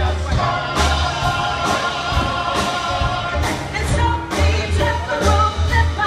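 Live band playing a show tune with a pulsing bass, and a woman singing over it through the stage speakers.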